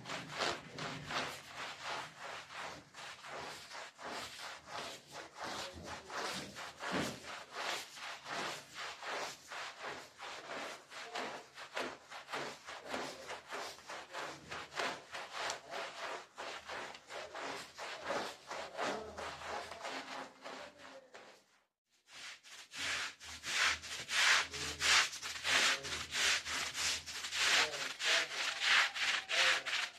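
Long-handled stiff-bristled brush scrubbing a wet, muddy rug in rapid back-and-forth strokes. The scrubbing stops briefly about two-thirds of the way in, then resumes louder.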